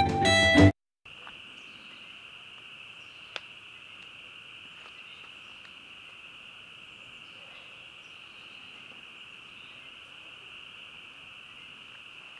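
A short stretch of music cuts off within the first second, then a steady chorus of insects sets in: one unbroken high-pitched trill. A single sharp click sounds a few seconds in.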